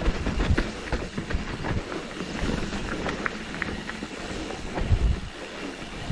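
Mountain bike rolling down a rough, rocky dirt trail: tyres crunching over stones and the bike rattling, with frequent irregular knocks from hits on the ground.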